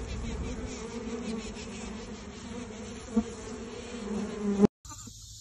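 Honeybee workers buzzing steadily in a cupped hand, clustered in a ball around a queen they are trying to kill. The buzz cuts off suddenly near the end.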